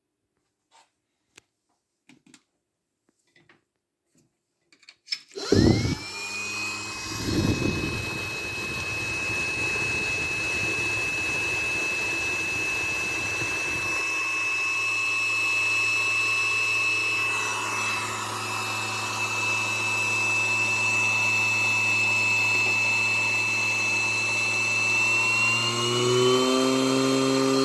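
A few faint clicks, then about five seconds in a 27 V aircraft electric blower (type 2D-7) spins up. Its whine rises quickly and settles into a steady high whine with a rush of air and a lower hum. Near the end the whine climbs a little higher as the blower speeds up.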